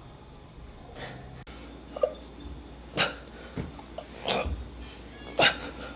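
A person's short, sharp gasping breaths, several in an irregular series about a second apart.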